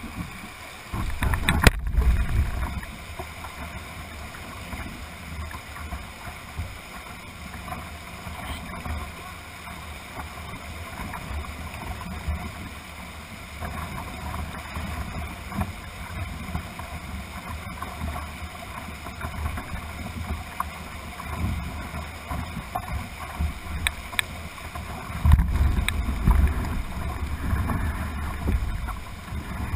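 Class II–III whitewater rapids rushing steadily past a canoe's bow, heard close up from the hull. Low rumbling buffets hit the microphone about two seconds in and again near the end.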